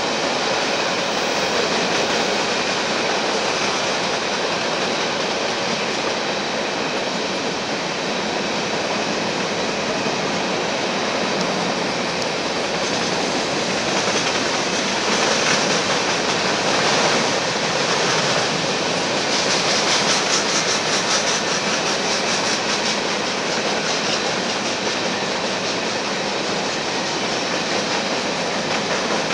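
Freight train of covered hopper cars rolling past on the rails: a steady, continuous noise of wheels on track.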